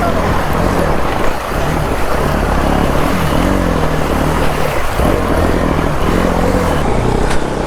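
Motorcycle engine revving up and down in a low gear through a stream crossing, with rushing water and splashing underneath.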